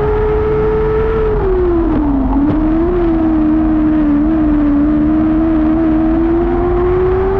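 Lightning sprint car engine running at high revs on a dirt track. About a second and a half in, its pitch drops as the throttle eases off, then it climbs gradually back up.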